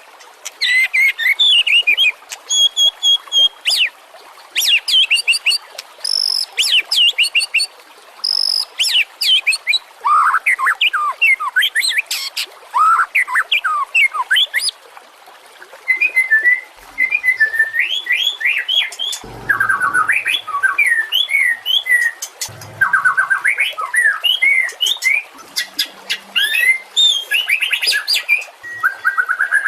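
White-rumped shama singing: rapid, varied phrases of clear whistles, trills and chirps, delivered in bursts of a second or two with short pauses between them.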